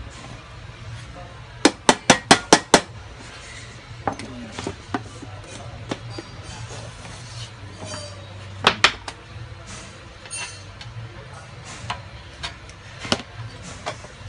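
Thin aluminium channel-letter strip clicking and tapping as it is handled and bent by hand: a quick run of about six sharp clicks near the start, a pair of clicks in the middle, and lighter ticks between, over a steady low hum.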